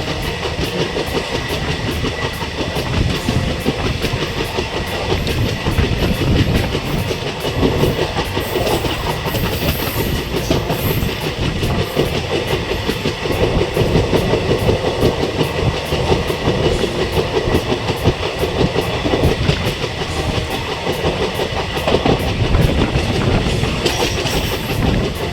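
Indian Railways ICF passenger coach running at speed, with steady wheel rumble and clickety-clack over the rail joints.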